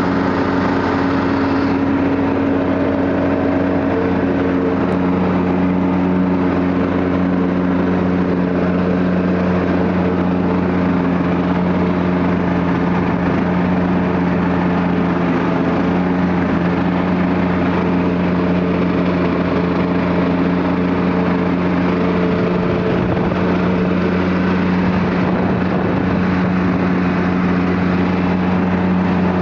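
Riding lawn mower's engine running steadily while cutting grass, a constant even drone.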